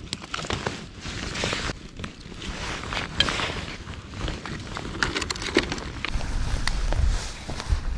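Small wood campfire crackling, with scattered sharp snaps and clicks as twigs and sticks are handled and fed onto it. A low rumble of wind on the microphone comes in over the second half.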